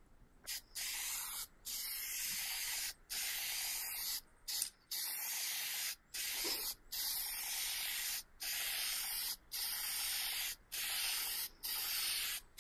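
Aerosol can of lacquer toner spraying in about a dozen short hissing bursts, each around a second long with brief breaks between.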